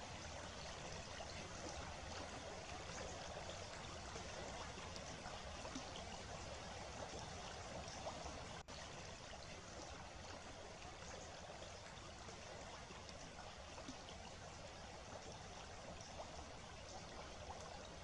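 Faint, steady rushing noise like running water, with no distinct events. There is a brief dropout about halfway through.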